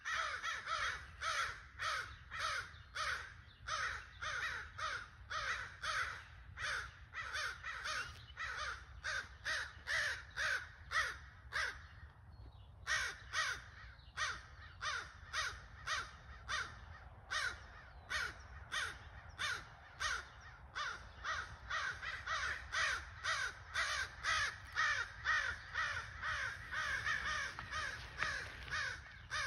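Crows cawing over and over in a fast, unbroken series, about two to three harsh caws a second, with one brief break about twelve seconds in.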